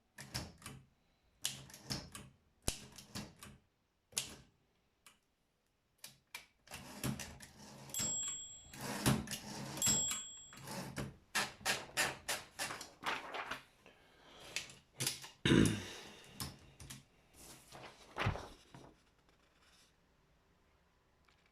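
Olympia SM7 manual portable typewriter being typed on: a run of irregular key clicks with brief pauses, two heavier thuds later on, and the typing stops shortly before the end.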